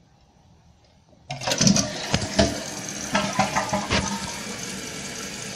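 A 2014 Kohler Wellworth toilet flushing. The water rushes out of the tank starting suddenly about a second in, loudest at first, then settles into a steady rush.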